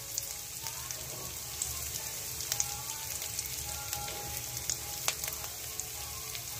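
Spice masala of ginger-garlic-chilli paste, turmeric and coriander powder frying in hot oil in a pan. It sizzles steadily, with scattered sharp pops and crackles.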